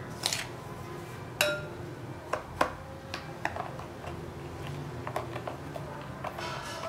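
Kitchen utensils and dishes knocking and clinking, a series of irregular sharp taps, a few of them ringing briefly; the loudest come about one and a half and two and a half seconds in.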